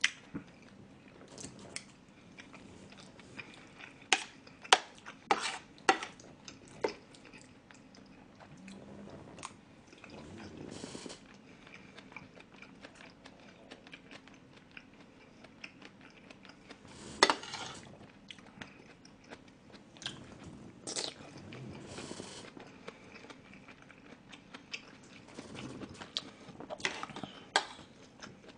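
Close-miked chewing of rice and seafood, with sharp clinks of a metal spoon against the dishes, several in quick succession a few seconds in.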